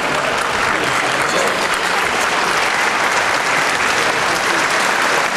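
Arena crowd applauding: dense, steady clapping.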